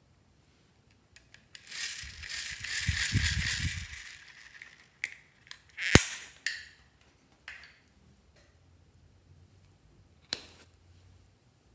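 Small plastic items handled over a glass tray. A rustling, rattling hiss lasts about two seconds, then a sharp click comes about six seconds in, followed by a few lighter clicks and taps.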